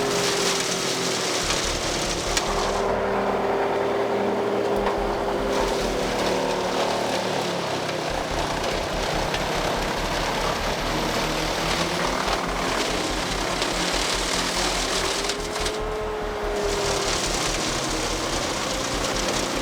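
Wood chipper running under power: a steady engine drone with a wavering whine over a wide hiss. The sound shifts abruptly a few times.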